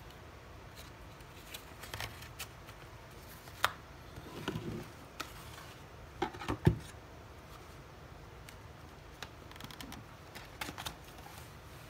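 Handling a Breitling watch box set: scattered taps and clicks of cardboard and paper booklets, a brief rustle, and a pair of knocks as the hard inner presentation box is set down into its cardboard outer box, the louder about six and a half seconds in.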